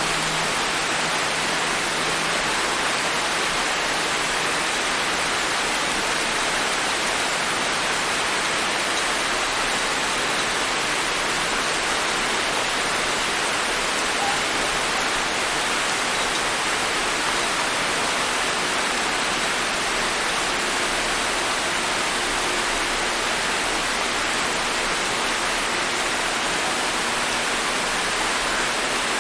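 Steady rain falling, an even hiss with no separate drops, thunder or other events standing out.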